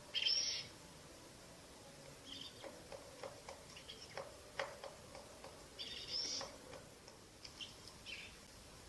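Eurasian eagle-owl chicks giving short, raspy, hissing begging calls. The loudest comes just after the start, a louder pair follows about six seconds in, and scattered light clicks fall between the calls.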